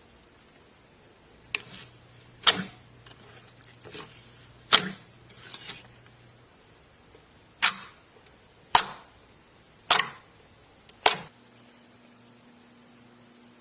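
Crunchy slime being pressed and squeezed, giving about seven sharp crackling pops roughly a second apart, with fainter crackles between them.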